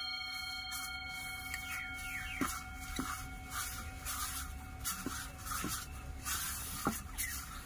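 Fingers rubbing and squeezing rice flour moistened with beetroot juice against a brass plate: a soft, dry scraping rustle with a few light taps on the plate. A faint metallic ringing from the brass plate dies away over the first few seconds.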